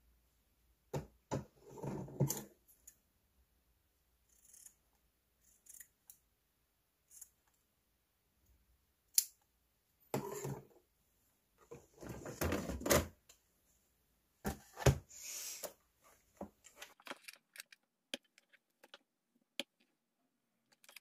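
Cotton fabric pieces rustling in short bursts as they are handled and opened out. Scattered clicks and light knocks come from tools and a pressing board set down on a cutting mat.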